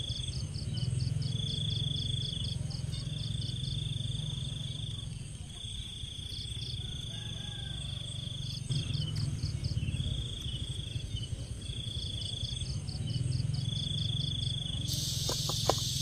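Insects calling in grassland: a high steady trill that breaks off about every second, alternating with a rapid pulsing chirp, over a low rumble. Near the end a denser, hissing insect chorus takes over.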